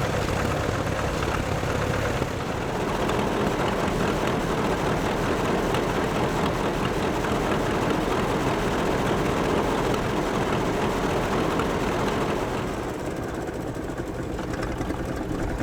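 Vintage tractor engine running steadily, with a low, even note that eases off a little near the end.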